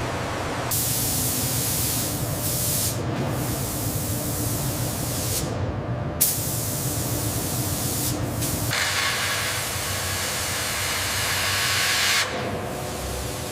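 Pressurised spray hissing, broken off and restarting abruptly several times, with one sharp click about midway.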